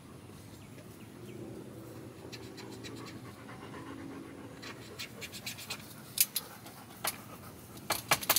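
A golden retriever panting, then a Sharpie marker scratching over a plastic seed tray in short strokes; the marker has dried up.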